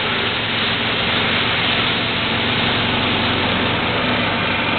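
Golf cart engine running steadily, under a loud, even hiss.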